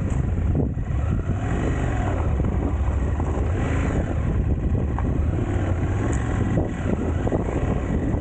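Motorcycle ridden over a deep gravel road: the engine runs under heavy wind noise on the microphone, with tyres crackling over loose gravel.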